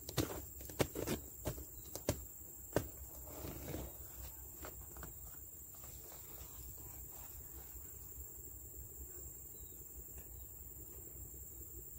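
A handful of sharp scuffs and taps in the first three seconds, then a quiet steady outdoor background with a continuous high-pitched insect drone.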